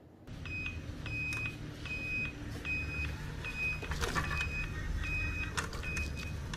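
Homemade RC wheelbarrow truck's electric drive motor and gears running, with a steady run of short high beeps like a reversing beeper, about two or three a second. There is a brief rattle about four seconds in.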